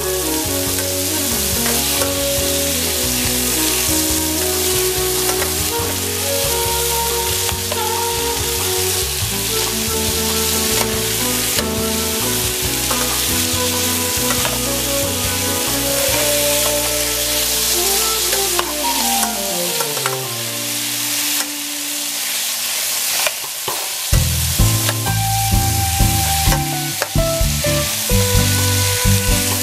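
Sliced onion, tomato, ginger and garlic sizzling in oil in a frying pan while a metal ladle stirs them, with music playing underneath. The stirring knocks grow sharper in the last few seconds.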